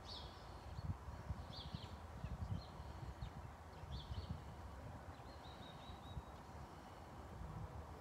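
Small birds chirping in short calls every second or so, with a quick run of notes about five seconds in, over a faint, uneven low rumble.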